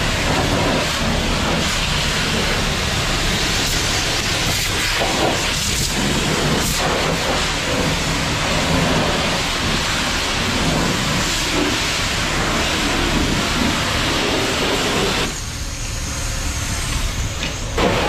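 High-pressure water spray from a coin-operated car-wash pressure-washer wand hissing steadily as it blasts a truck's tyre, wheel well and lower body, washing off road salt and grime. About fifteen seconds in the spray sound drops for a couple of seconds, then comes back just before the end.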